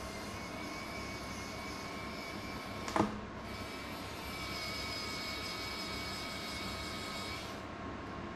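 A steady electrical or fan-like hum with faint steady whines, broken by one sharp click about three seconds in, after which a brighter hiss and a higher whine run for about four seconds before dropping away.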